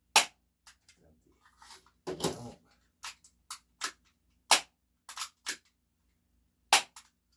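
Full-metal spring airsoft pistol being handled and cocked: sharp metal clacks, the three loudest near the start, about halfway and near the end, with softer clicks between and a brief scraping rasp about two seconds in.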